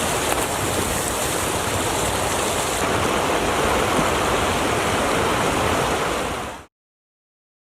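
Steady rush of flowing water, even and unbroken, cutting off abruptly near the end.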